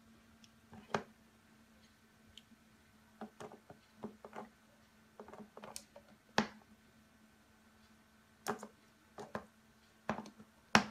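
Irregular light taps and clicks as a cat's paw pats and presses the plastic mist nozzle of a cool-mist humidifier, over a faint steady hum.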